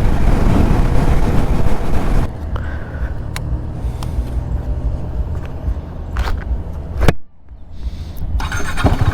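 Riding noise from the KTM RC390: wind rush over the engine on the rider's microphone. About two seconds in it drops suddenly to a quieter low hum with a few sharp clicks, then one loud knock near seven seconds and a brief gap.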